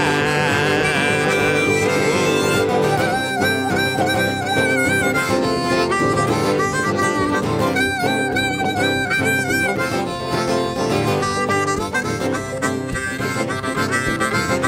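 Background music: an instrumental break in a country-blues song, a harmonica playing long, bending notes over guitar.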